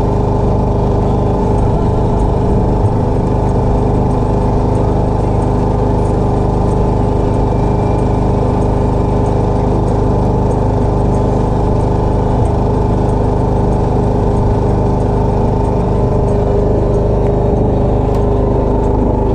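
A small engine running steadily at a constant speed on the fishing boat, its pitch and loudness unchanging.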